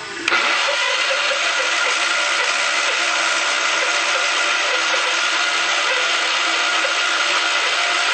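Onan 20 HP twin-cylinder engine of a Craftsman III lawn tractor running close up with a loud, steady drone. It sets in suddenly just after the start and holds an even level throughout.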